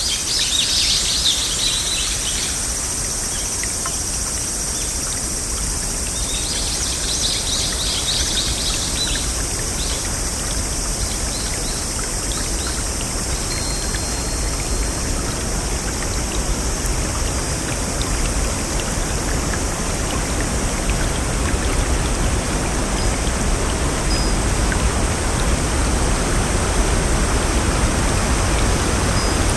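Steady rushing of flowing water, with two short bouts of rapid high chirping, one at the start and one about seven seconds in. The rushing grows a little louder toward the end.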